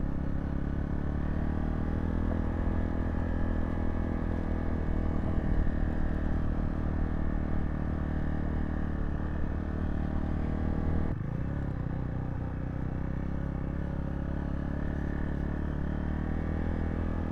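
Zontes T2 350 motorcycle's single-cylinder engine running steadily under way. About eleven seconds in, the engine sound drops abruptly and then carries on at a lower, even level.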